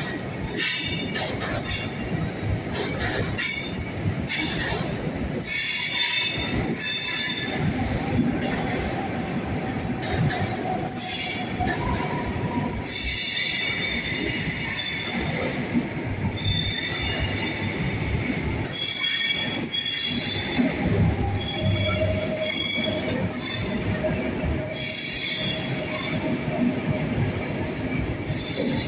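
Intercity passenger coaches rolling past along the platform, their wheels squealing on the rails in high, shifting tones that come and go every second or two over the steady rumble of the train.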